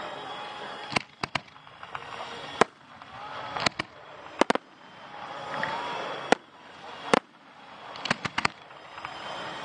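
Fireworks display: aerial shells bursting in about a dozen sharp bangs, several in quick pairs and a cluster near the end, with a swelling hiss and crackle between the reports.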